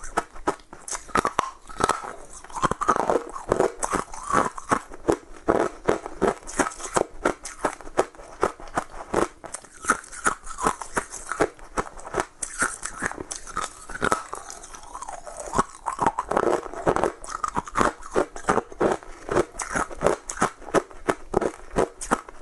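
Ice being bitten and chewed close to the microphone: a continuous, irregular run of sharp crunches, several a second.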